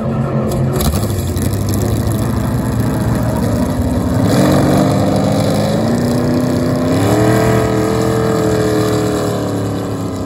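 Hydro 350 hydroplane race boat's engine running hard as the boat pulls away from the shallows, its pitch climbing in two steps, about four seconds in and again about seven seconds in.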